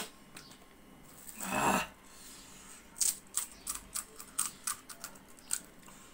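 Crisp cracking of a fried panipuri (puri) shell being broken open with a thumb: a quick run of sharp clicks and crackles lasting about two and a half seconds, after a brief muffled sound about a second and a half in.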